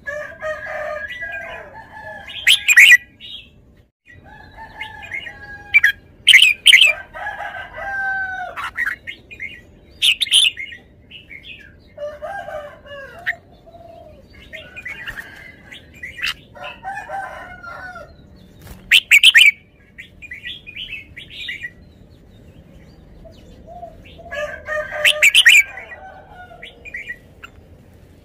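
Red-whiskered bulbul singing: short phrases of bubbly, gliding whistled notes every few seconds, with a few very loud, sharp notes among them.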